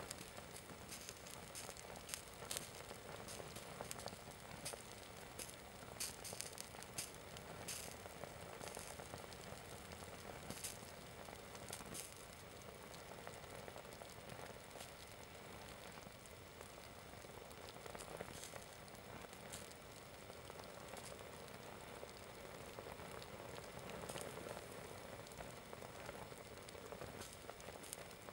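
Small flames on a hanging polyester Adidas sports shirt, faintly sizzling and crackling as the synthetic fabric burns and melts, with irregular sharp pops scattered throughout.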